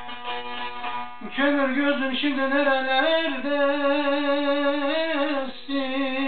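Bağlama (saz) played alone with quick plucked strokes for about a second, then a man's voice comes in over it, singing long, wavering held notes of a Turkish folk melody, with a short break near the end before another held note.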